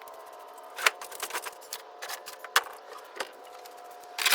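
Irregular sharp clicks and taps of hands working with tools or materials, loudest a little under a second in and in a quick cluster near the end, over a faint steady hum.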